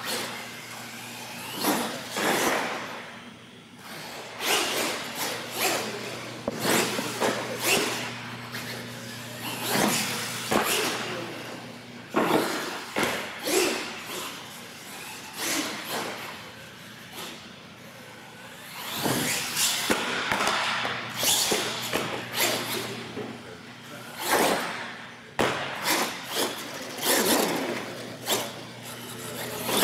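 R/C monster truck driving around a freestyle course: motor and tyres whirring in swells as it accelerates, with repeated sharp knocks and clatters from landings and ramp hits on the concrete, echoing in a large hall. A steady low hum runs underneath.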